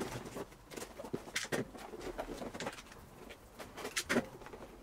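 Utility knife slitting packing tape on a cardboard box, with tape ripping and the cardboard flaps being pulled open: an irregular run of scrapes and rips, the loudest about a second and a half in and again about four seconds in.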